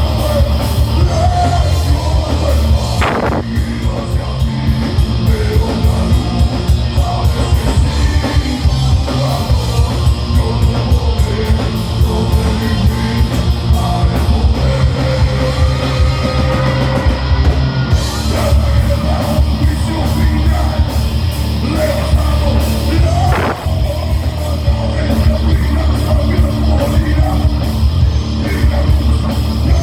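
A heavy metal band playing live, loud and without a break, with yelled vocals over the band.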